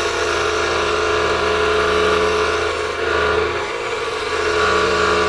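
Scroll saw running and cutting a thin piece of wood fed by hand, a steady machine hum with the buzz of the reciprocating blade.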